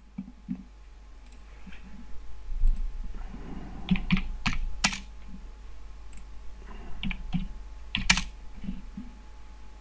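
Irregular keystrokes on a computer keyboard as numbers are typed in, with a few sharper clicks about five and eight seconds in.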